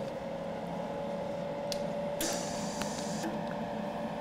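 Argon/CO2 shielding gas hissing from a MIG welder's torch with the trigger held, over the welder's steady hum. The hiss comes up louder for about a second a little past halfway.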